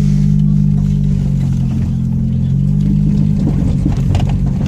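2000 Nissan Altima GXE's four-cylinder engine droning steadily with its exhaust cut off, heard from inside the car. A little over three seconds in, the even drone gives way to a rougher, uneven rumble.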